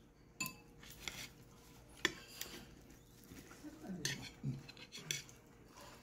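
Metal chopsticks clicking and scraping against a plate as a pancake is pulled apart, about half a dozen sharp clicks, the loudest about two seconds in.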